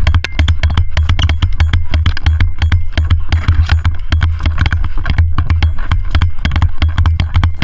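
Airsoft guns firing: a dense run of sharp, irregular cracks and clicks over a steady low rumble.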